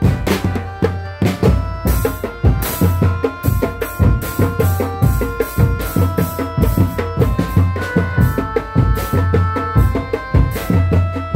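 Loud traditional percussion music: hand drums play a busy rhythm over a deep repeating beat, with a melody of held notes above. This is the accompaniment for a big-cat costume dance.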